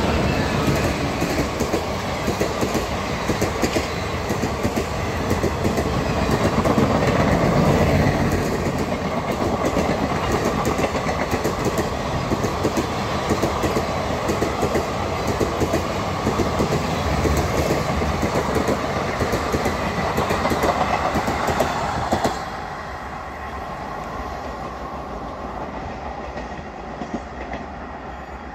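Passenger train behind an Indian Railways WAG-7 electric locomotive running through a station at speed without stopping: a dense rumble with wheels clattering rapidly over rail joints. The noise drops sharply about 22 seconds in, leaving a fainter rumble.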